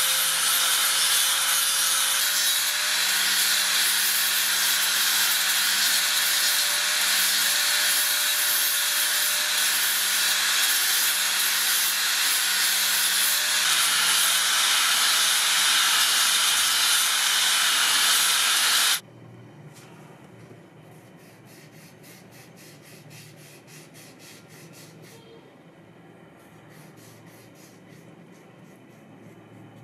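Angle grinder with a sanding disc running steadily under load as it sands down a wooden knife handle, then cutting off abruptly about nineteen seconds in. After it, much quieter, a cloth rubs a finish onto the wooden handle in quick repeated strokes.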